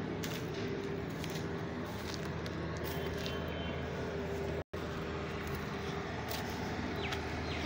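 A steady mechanical hum with several low droning tones, from an engine or machine running, with a few faint clicks over it. The sound cuts out completely for an instant a little after halfway.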